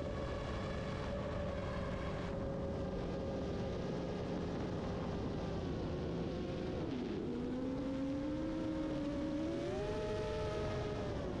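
FPV quadcopter's brushless motors and propellers whining as it flies. The pitch holds steady, drops sharply about seven seconds in, then climbs back and steps up again near the end as the throttle changes.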